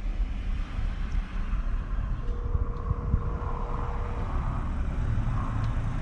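A car engine running in the snow, a steady low rumble with wind noise on the microphone.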